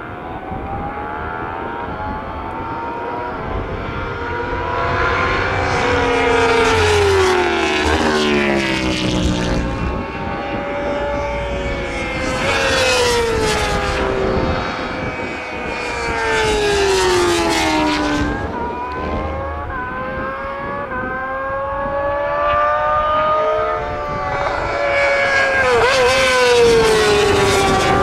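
Racing motorcycles passing at speed one after another, about four close passes with each engine's pitch dropping as it goes by, other bikes running underneath; the loudest pass comes near the end.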